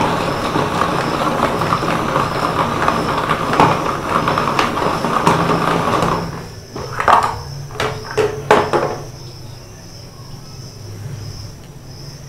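Hand-operated vegetable chopper being worked, its blades spinning through onion with a dense, steady clatter for about six seconds. Then it stops, and a few sharp knocks follow as the plastic chopper is handled.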